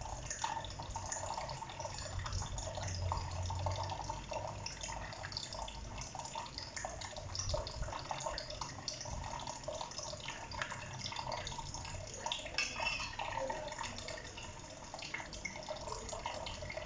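Water running steadily from a kitchen tap, with scattered small clicks and knocks.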